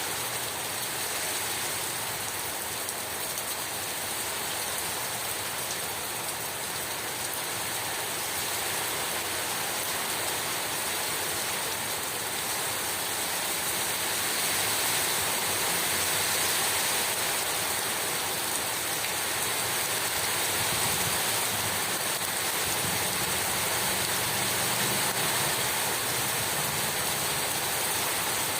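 Heavy rain pouring down in a steady, dense hiss, swelling slightly louder about halfway through.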